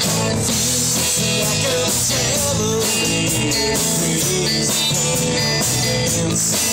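Live rock band playing at full volume: electric guitars, keyboard and drums through a PA, the level steady and loud throughout.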